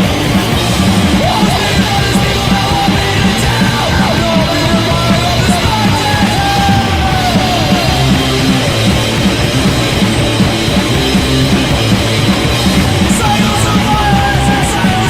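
Punk rock band playing loudly and without a break, heard as a rough rehearsal-room demo recording.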